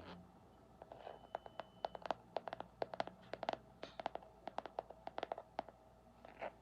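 ASMR tapping: a run of quick, irregular light taps in small clusters, starting about a second in and stopping shortly before the end.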